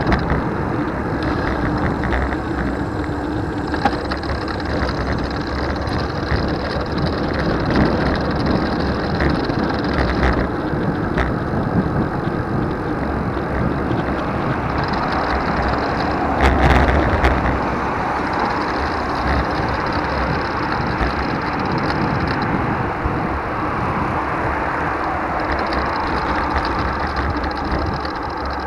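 Steady rushing road noise from riding a 2020 Trek Dual Sport 4 hybrid bicycle, with a louder swell and a sharp click about 16 to 17 seconds in.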